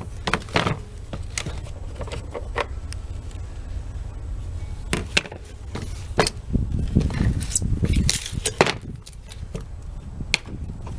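Plastic parts of a small portable Bissell vacuum being handled and brushed clean, giving irregular clicks, knocks and rattles, busiest about two-thirds of the way in. Wind rumbles on the microphone throughout.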